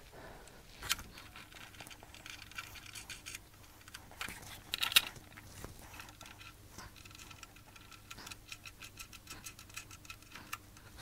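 Faint small metal clicks and scratching of threaded-rod studs and flange nuts being handled and threaded by hand into a steel trailer frame, with a sharper clink about a second in and a louder cluster of clicks near five seconds.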